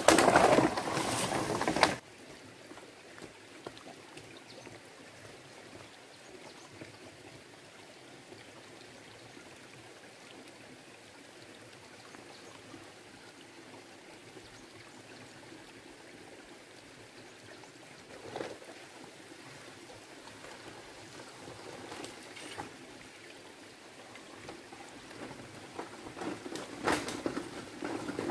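Small stream trickling steadily over rocks. For the first two seconds, loud rustling and scraping as long bamboo poles are dragged through the undergrowth. Short rustles of footsteps through vegetation come near the end.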